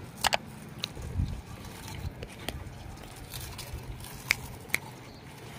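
Potato wafers crunching as several people bite and chew them quickly: scattered sharp crunches, a double one right at the start and the loudest about four seconds in.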